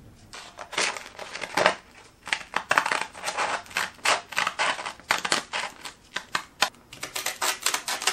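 Scissors cutting through a sheet of sandpaper: a quick, uneven run of short snips.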